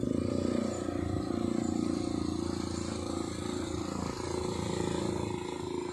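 ATV engine running steadily with an even, unchanging note.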